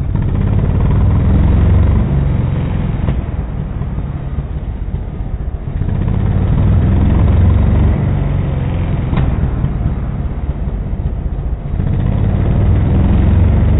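Chinese 150cc single-cylinder four-stroke dirt bike engine revved three times, each rev held about two seconds before dropping back to idle. A faint pop comes from the exhaust a second or so after each of the first two revs falls away: the rev-and-release meant to make the exhaust backfire and spit flame.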